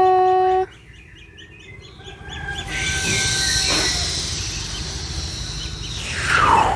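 Ducklings peeping in a steady run of small high chirps, about four a second. A loud held tone cuts off abruptly just after the start. From about two seconds in, a broad hiss rises over the peeps and ends in a quick downward swish.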